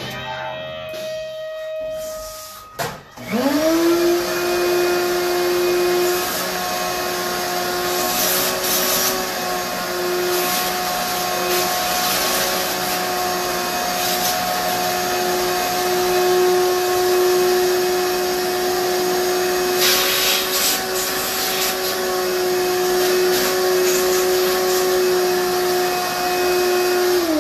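Shop vacuum switched on about three seconds in and running steadily, its hose held into a Ford 9-inch differential center section to suck it clean. Two brief hissier surges come partway through.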